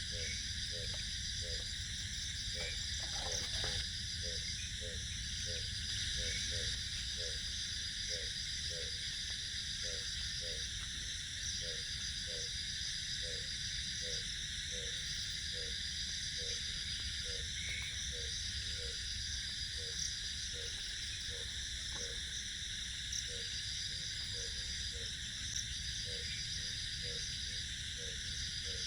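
Insects chirring steadily, one of them in a high trill that starts and stops every few seconds, over a steady low rumble. Through it an animal gives a short low call over and over, about once or twice a second, often in pairs.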